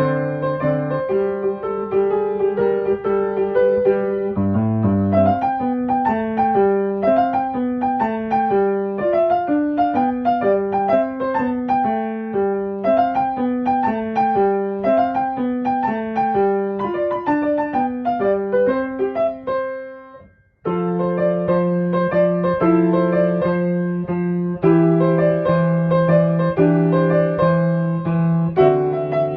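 Background piano music: a melody of plucked-sounding keyboard notes over a repeating bass, cutting out for about half a second around two-thirds of the way through before starting again.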